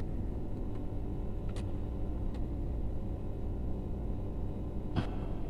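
A steady low rumble of background noise, with a few light clicks and taps as a plastic wall switch and its wires are handled. The clearest click comes about five seconds in.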